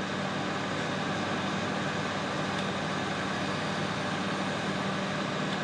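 Power Boost 900 microwave oven running, its timer counting down: a steady low hum with an even hiss over it.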